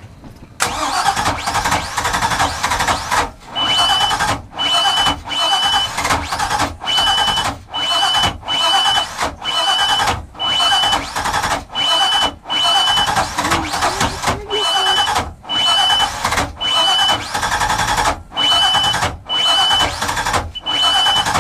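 MerCruiser 6.2 L V8 marine engine turning over, the sound breaking into bursts under a second long with brief gaps between them. A high steady beep sounds in many of the bursts.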